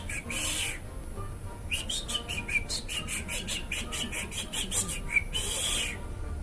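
Rufous hornero (joão-de-barro) song, as performed for a bird imitation: a rapid run of sharp, loud chirping notes, about five a second, broken by two short hissing bursts, one just after the start and one near the end.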